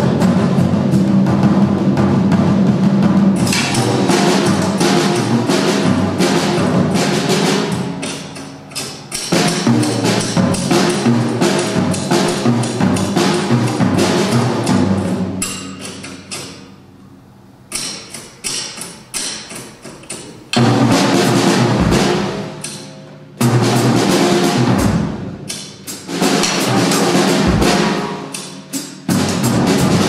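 Drum kit and typewriter played together as one percussion solo: typewriter keystrokes mixed with drums and cymbals in a busy, shifting rhythm, with a brief lull a little past halfway before loud hits return.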